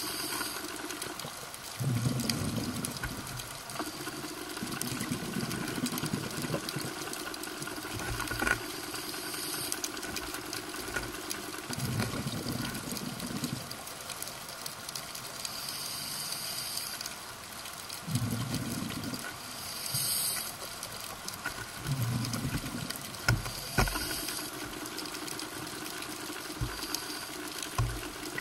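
Scuba regulator breathing underwater: a hissing inhalation through the regulator, then a burst of exhaled bubbles, repeating every several seconds.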